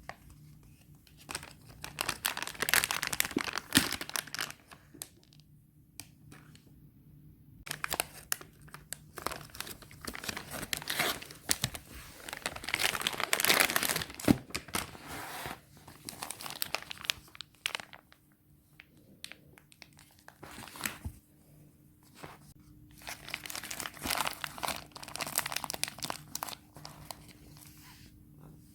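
Packaging of a kinetic sand set being crinkled and torn open by hand, in several bursts of crackling with short pauses between.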